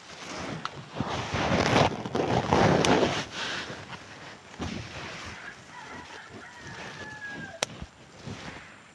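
Fabric rubbing and brushing over a phone's microphone while it is handled, in loud rustling bursts for the first few seconds and quieter afterwards. A faint, slightly falling whistle-like tone is heard past the middle, and a single sharp click comes near the end.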